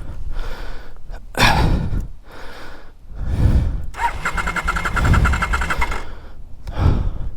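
Heavy panting breaths, and about four seconds in the electric starter cranks the KTM 950 Adventure's LC8 V-twin for a couple of seconds, cutting off without the engine catching.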